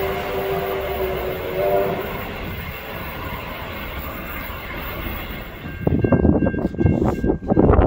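A heritage excursion train sounding a multi-note chime whistle, held as one steady chord that stops about two seconds in, over the train's continuous rumble and clatter. Near the end the sound changes suddenly to loud, irregular buffeting thumps.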